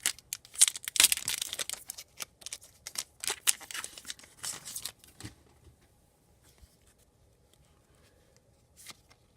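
A hockey card pack wrapper being torn open and crinkled by hand: a quick run of tearing and rustling that stops about five seconds in, followed by quiet handling with one faint click near the end.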